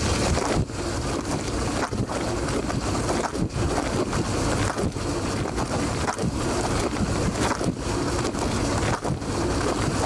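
Dishwasher wash cycle heard from inside the tub: water jets spraying onto the racks and the camera, a steady rushing that dips briefly about every second and a half.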